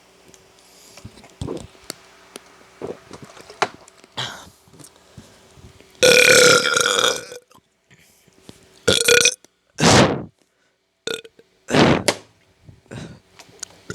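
A person burping: one long, loud burp about six seconds in, followed by a quick run of about five shorter burps.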